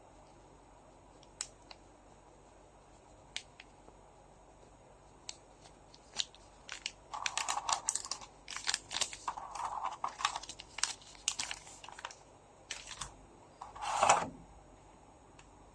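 Trading-card packs being handled and opened: a few light clicks and taps, then a long spell of wrapper crinkling and tearing with a louder rip near the end.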